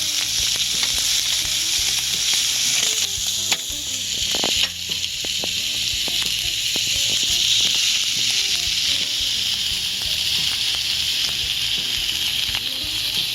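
Food sizzling on a hot pan or grill: a steady, loud frying hiss with a few small pops.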